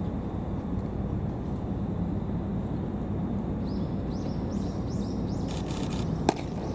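A pitched baseball smacks into a catcher's mitt with one sharp pop near the end. Over steady outdoor rumble, a bird chirps repeatedly in the second half.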